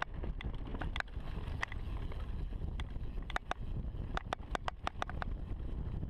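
2015 Giant Reign Advanced mountain bike descending a dirt singletrack: a steady low rumble of wind on the microphone and tyres on the dirt, broken by irregular sharp clicks that come thickest from about the middle onward.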